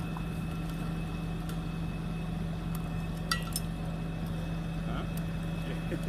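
An engine running steadily at idle, a low even hum at one pitch, with a few faint clicks a little before the middle.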